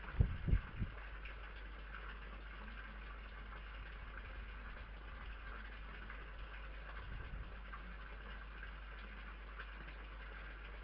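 Steady electronic hiss from a night-vision security camera's microphone, with a cluster of low thumps in the first second as a red fox moves suddenly by its food dish on the wooden decking, and a softer low thump about seven seconds in.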